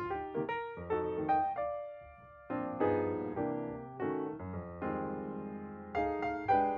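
Background piano music: chords and notes struck every half second or so, each ringing and fading, with a brief soft lull about two seconds in.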